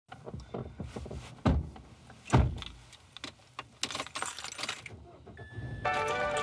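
Irregular clicks and knocks with two heavy thumps, followed by about a second of bright metallic jingling; music comes in near the end.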